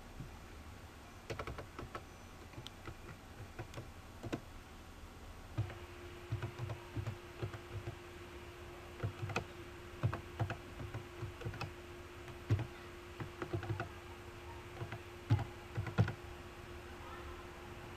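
Typing on a computer keyboard: irregular runs of key clicks with short pauses between them. A faint steady hum comes in about six seconds in and carries on under the typing.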